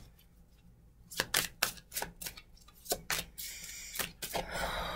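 A Chakra Wisdom Tarot deck being shuffled by hand: quick, uneven card slaps and clicks, then a longer stretch of cards sliding against each other near the end.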